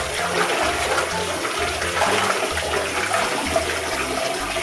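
Water pouring steadily from a bathtub mixer tap into a filling bathtub, an even rushing splash.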